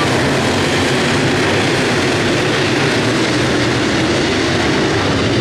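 A pack of dirt late model race cars running at speed on a dirt oval, their V8 engines making a loud, steady roar.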